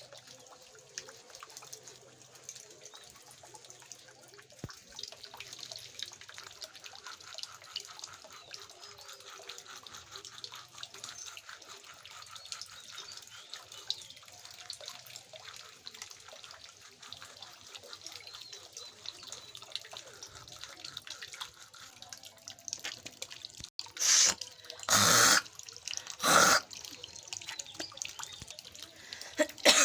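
Water trickling and dripping from a tap into a sink, with many small drips ticking throughout. Near the end come three loud coughs in quick succession.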